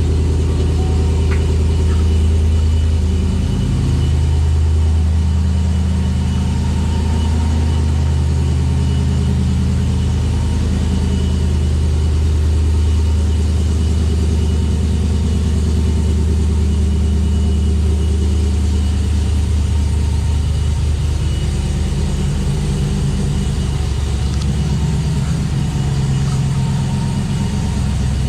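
Chevrolet Silverado pickup's engine running at a steady idle.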